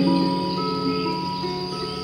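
Background music: slow, sustained notes changing over a low drone, with a steady high tone above them.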